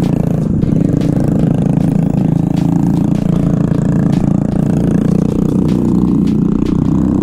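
Small single-cylinder two-wheeler engine running steadily while riding slowly over a rough dirt trail, with a few faint clicks.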